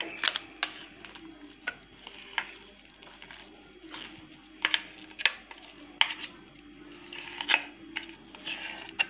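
Metal spoon clinking and scraping against stainless steel bowls while stirring and scooping a thick mashed chana dal and jaggery mixture: irregular sharp clinks with soft scraping between.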